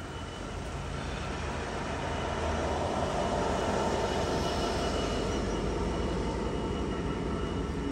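Freightliner Class 66 diesel locomotive with its EMD two-stroke engine passing at speed at the head of a container freight train, the engine and the wheels on the rails building up to loudest about three to five seconds in, over a steady hiss of rain.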